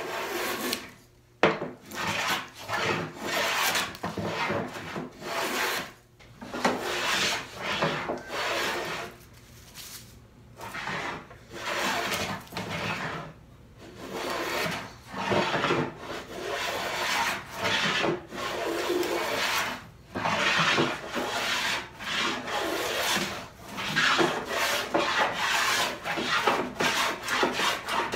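Stanley 78 rabbet plane cutting a rabbet along the edge of a walnut board, working down to its depth stop: repeated rasping strokes, each about a second long, with short pauses between. A sharp knock about a second and a half in.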